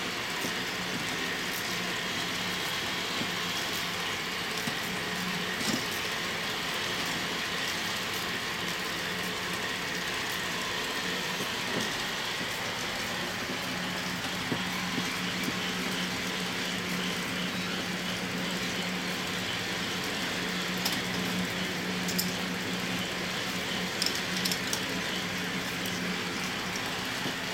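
K'nex ball machine running: a steady whirring clatter of motor-driven plastic gears and lifts with a low hum, and balls rolling along plastic tracks, with scattered sharp clicks.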